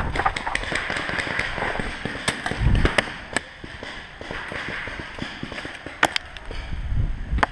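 Paintball markers firing across a wooded field: scattered sharp pops at irregular intervals, with a quick double crack about six seconds in. Rustling and shuffling as the player settles behind a wooden bunker is loudest over the first couple of seconds.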